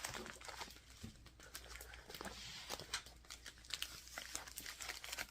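Packaging and kit contents being handled by hand: irregular crinkling and rustling with small clicks and taps.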